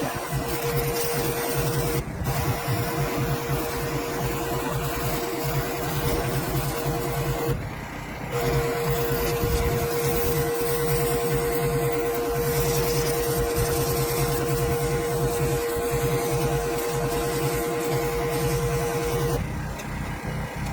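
Pressure washer running and spraying: a steady motor hum and whine over a hiss of water. The spray cuts off briefly twice, about seven seconds in and again near the end, while the machine keeps running underneath.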